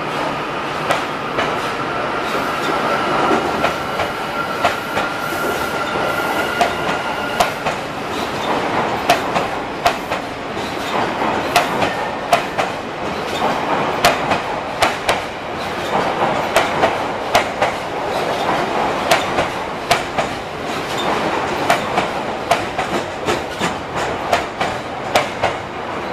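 An Odakyu Romancecar electric train pulling out of an underground station. A whine rises slowly in pitch for the first seven seconds or so, then stops. After that the wheels clack over rail joints and points in quick pairs, growing more frequent as the cars roll past.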